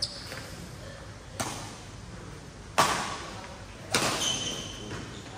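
Badminton racket strings striking a shuttlecock four times in a singles rally: sharp smacks about one and a half seconds apart, echoing in a large hall, the third the loudest. A short high squeak follows the last hit.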